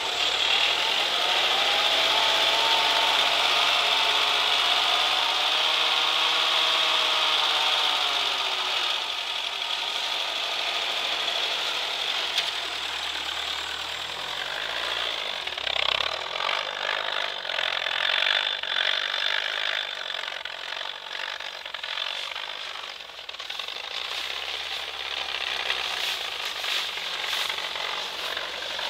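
A 1980 UAZ off-roader's engine revving under load in deep snow, its pitch rising and falling over the first several seconds. The sound then grows quieter and more uneven, with some rattling, as the vehicle moves off.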